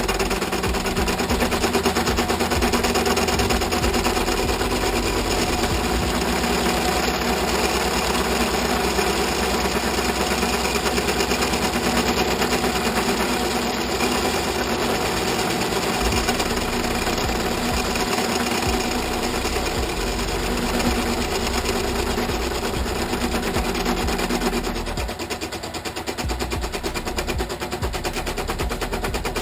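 Small metal lathe running under a rough cut with a high-speed steel tool, a dense rapid rattling through the cut; the tool is struggling to cut the part. The sound eases briefly about 25 seconds in.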